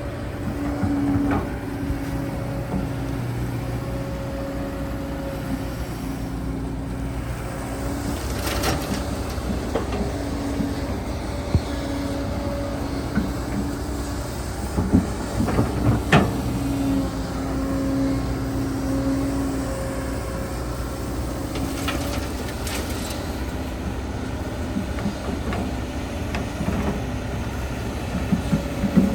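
Hydraulic excavator's diesel engine running steadily as it digs, its tone coming and going in stretches, with a few sharp knocks around the middle.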